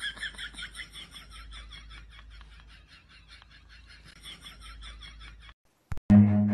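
Soft, breathy laughter in quick rhythmic pulses, fading over several seconds and cutting off abruptly. Cello music starts right at the end.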